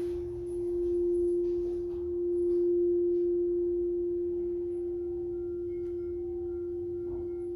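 Singing bowl ringing with one steady, pure tone that swells and ebbs in loudness over the first few seconds, then holds and slowly fades. Faint higher tones join about five seconds in.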